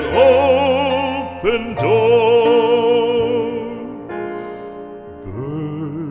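A classical singer with a strong vibrato holds long notes of an art song over piano accompaniment. About four seconds in the voice drops out and the piano carries on alone.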